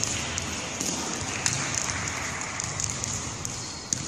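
Handball players' footsteps and the ball's occasional sharp bounces and catches, over the steady hubbub of a large indoor sports hall.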